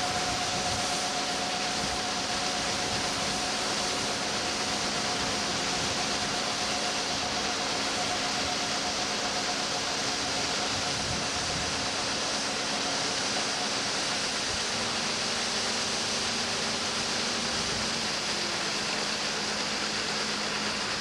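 John Deere combine harvesters running at working speed while augering beans into a truck: a steady mechanical rush with a few steady hums whose pitch shifts about two-thirds of the way through.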